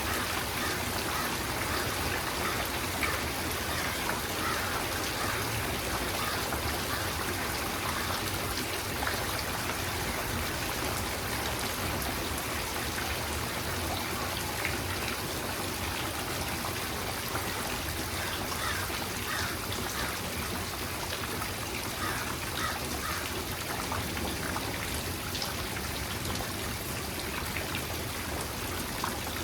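Steady rain falling, with many separate drops heard close by.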